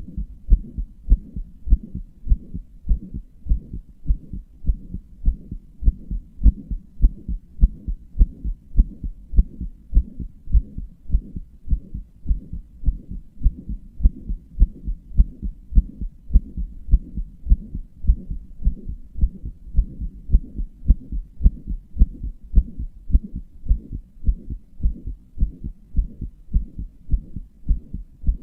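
Human heartbeat heard close up: a steady, regular run of low paired beats, with a heart murmur sounding between them.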